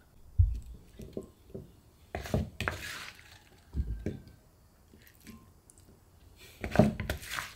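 A spoon mixing fruit salad in a bowl: soft knocks and scrapes against the bowl, with two low thumps and two longer scraping, rustling passages, one about two seconds in and one near the end.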